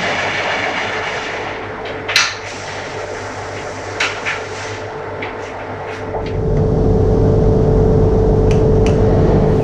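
A few sharp metallic clicks and taps from hand tools doing up bolts on a roof rack's mounting rail, over a steady workshop hum. A deeper rumble comes in about six seconds in.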